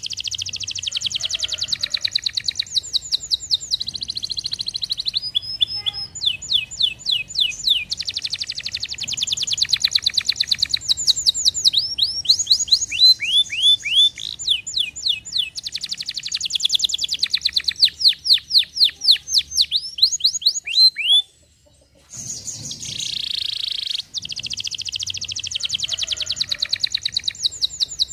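Domestic canary singing a long song of fast trills and runs of quick, falling sweeping notes, with one short break about three quarters of the way through before the song starts again.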